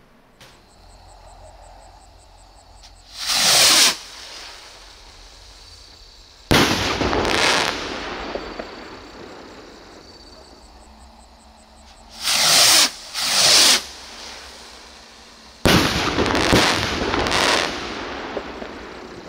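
Funke Bomben Raketen stick rockets being fired. One goes up with a short whoosh about three seconds in and bursts with a sharp bang about three seconds later. Two more whoosh up one after the other around twelve seconds in, then burst with two bangs close together, the last fading out over a couple of seconds.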